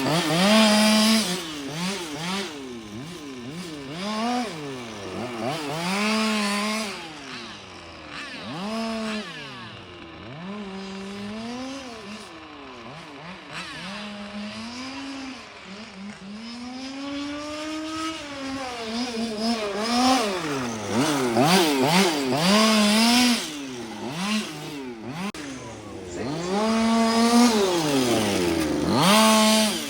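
Two-stroke petrol engines of 1:5 scale RC cars racing, revving up and falling back again and again as the throttle opens and closes, holding at a steady top pitch several times along the straights.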